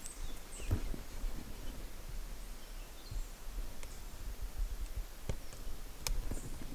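Low outdoor rumble with a few scattered sharp clicks and knocks.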